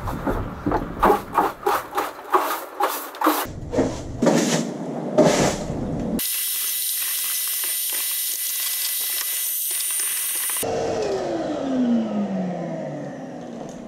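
Broom bristles sweeping a plywood van floor in brisk strokes, about three a second, for roughly six seconds. Then a vacuum cleaner runs with a steady hiss and winds down near the end, its whine falling in pitch as the motor stops.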